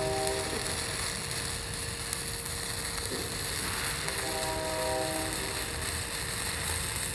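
Stick welding arc crackling and hissing steadily as a 309 stainless electrode is dragged along a cap bead on steel plate, at 70 amps.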